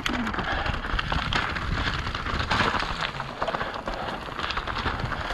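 Mountain bike tyres rolling fast over loose stones and roots, the bike clattering and rattling over the bumps in a steady noisy rush with many quick clicks and knocks.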